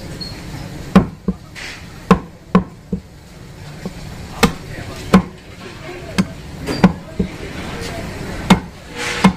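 Butcher's cleaver chopping beef on a wooden stump block: about a dozen sharp, irregular chops, with short pauses while the pieces are turned.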